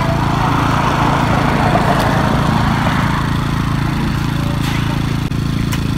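An engine idling steadily, a low hum made of several steady tones, with a rushing noise that swells and fades over the first few seconds.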